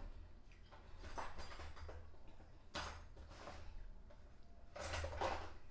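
A few faint clinks and rattles of kitchen utensils as a spoon is fetched from the counter.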